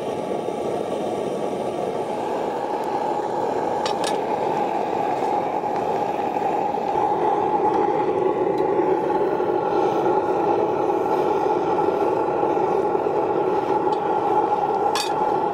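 Small backyard metal-melting furnace's burner running with a steady rushing noise. A brief click sounds about four seconds in and another near the end.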